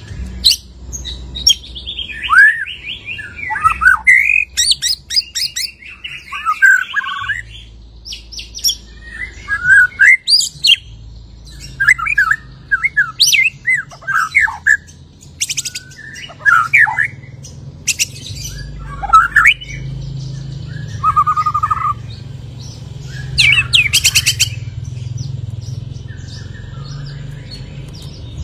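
White-rumped shama (murai batu) singing a long, loud and varied song: one phrase after another of sweeping whistles, rapid trills and harsh buzzy notes. The bird is in full song after its moult, running through its repertoire of mimicked calls.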